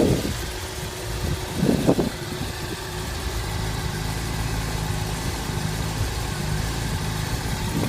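Honda CBR600RR sport bike's inline-four engine idling steadily.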